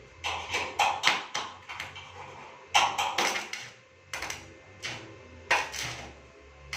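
A series of about fifteen sharp taps and knocks of hard objects at an uneven pace, the loudest about three seconds in.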